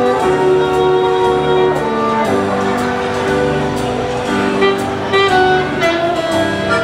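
Music: a slow melody of long held notes over a steady accompaniment.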